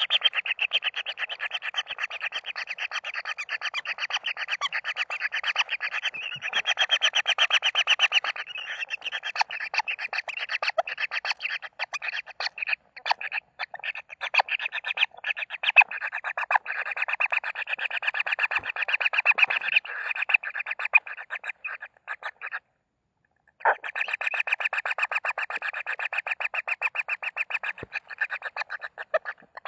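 Kingfisher chicks calling with a fast, continuous buzzing trill of many rapid pulses. The trill thins out briefly in the middle and breaks off for about a second near the end before starting again.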